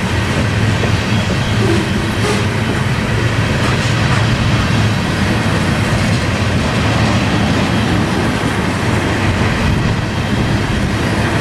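Freight cars of a grain train rolling steadily past, their wheels running on the rails.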